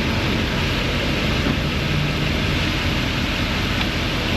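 A vehicle running close by in the shop: a steady, even, loud mechanical noise with no breaks.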